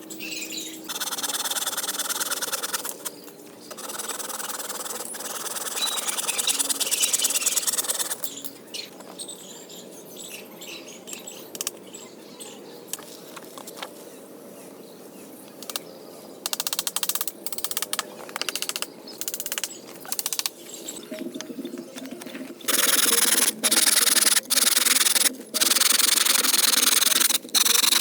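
Rasping and scraping of a hand tool working wood, in stop-start bouts of strokes, with a quieter stretch in the middle and the loudest bouts near the end.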